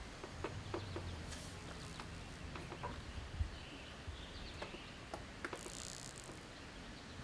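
Faint outdoor background with scattered bird chirps and a few small clicks and knocks, and a short high hiss a little before the end.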